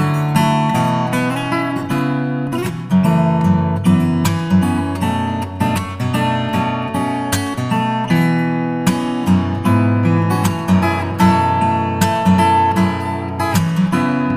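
Background music: acoustic guitar playing, with frequent plucked and strummed chords.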